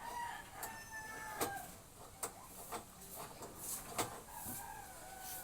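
Scattered sharp clicks and taps, about four over the stretch, with faint wavering birdlike calls behind them.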